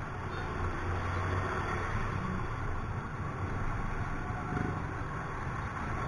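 Yamaha Mio i 125 scooter riding slowly through city traffic: the small engine runs steadily under a constant haze of road and traffic noise, a little stronger for the first second and a half.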